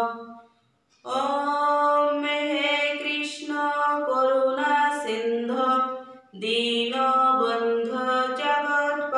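A woman's voice chanting a Sanskrit prayer verse to a slow sung melody with long held notes. A short pause comes just after the start, then one long phrase; a second phrase begins about six seconds in.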